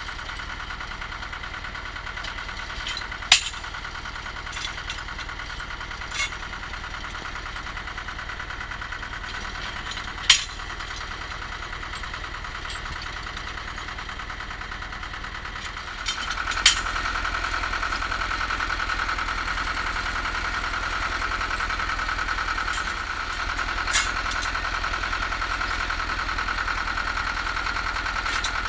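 Cable percussion drilling rig's engine running steadily, getting louder a little over halfway through, with a few sharp knocks several seconds apart.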